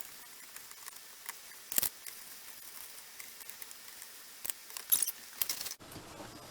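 Light scratching and clicking noises over a faint hiss: a brief scrape about two seconds in, then a cluster of quick scratchy clicks near the end.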